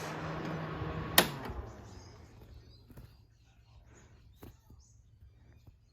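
Vintage Sanyo rotary box fan running with a steady hum, then a sharp switch click about a second in. The motor hum stops and the air noise dies away as the blades spin down, leaving a few faint clicks.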